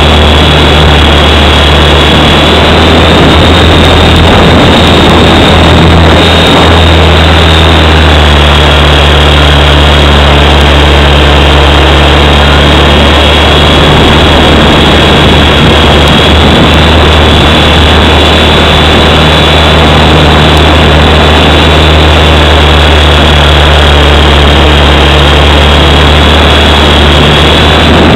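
WLtoys V912 electric RC helicopter's motor and rotor heard from on board, very loud and steady: a low rotor hum under a thin, high motor whine.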